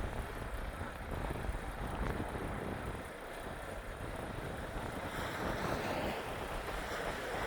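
Semi-truck driving on a winter highway: a steady rumble of engine and tyres with a rushing hiss of wind and road noise.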